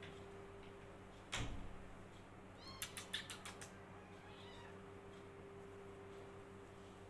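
Kittens play-fighting on a tiled floor: a dull thump about a second and a half in, then a kitten's short high cry with a quick run of sharp clicks about three seconds in.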